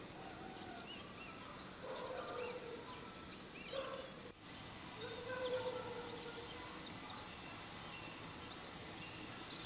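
Small songbirds chirping and trilling, with several lower, drawn-out calls mixed in; the loudest of these comes about five and a half seconds in.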